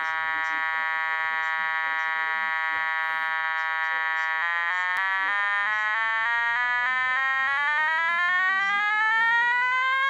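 Nokta Makro Gold Kruzer metal detector's audio tone: a steady, buzzy tone for about four seconds, then a run of quick jumps up and down in pitch, then a smooth rising glide in pitch through the last few seconds.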